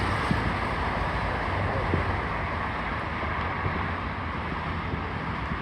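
Wind buffeting the microphone over a steady outdoor rumble, with a couple of faint distant fireworks booms about a quarter of a second and two seconds in.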